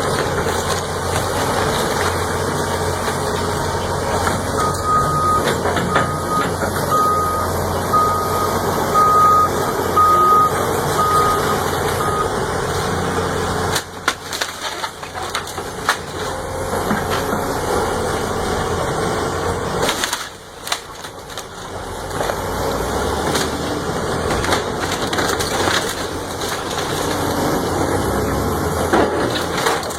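Heavy machinery running, with a reversing alarm beeping steadily, about one and a half beeps a second, for several seconds starting about five seconds in. The machine noise drops and changes abruptly twice later on.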